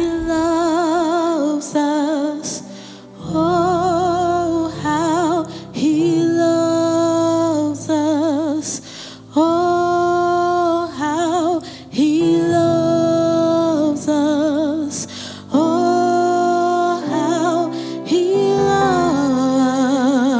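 A woman singing a slow song, holding long notes with strong vibrato, over instrumental accompaniment.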